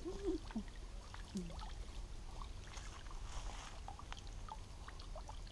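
Faint water dripping and trickling off a raised fish lift net, with small scattered splashes and taps as a metal bowl scoops small fish from the wet mesh.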